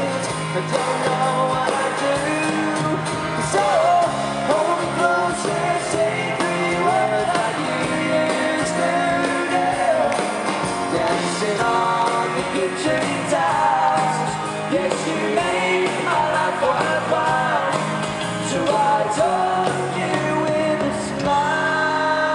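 Live pop-rock band playing in an arena, with singing over the band, recorded from among the audience. Near the end the music settles into a held chord.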